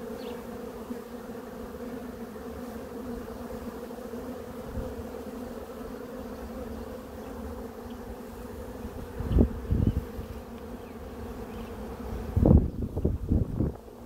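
Honeybees buzzing in a steady, even hum over an open hive. Low rumbling bumps break in about nine seconds in and again, longer and louder, near the end.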